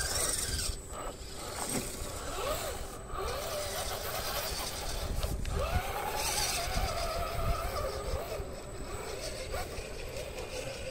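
Electric motor and gear train of a scale RC rock crawler whining under throttle, the pitch rising and falling as it climbs, over a low rumble.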